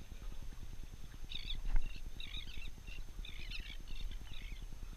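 Seabirds calling in repeated chattering bursts over a low rumble, with a single sharp knock a little under two seconds in.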